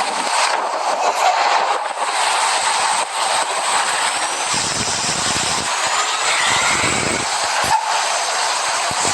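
Steady roadside traffic noise of passing vehicles, with two brief low rumbles about halfway through.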